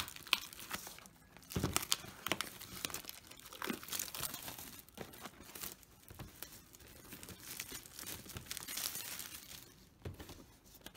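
Clear plastic shrink wrap being torn and peeled off a cardboard display box and crumpled in the hands: irregular crinkling and crackling with a few sharper snaps.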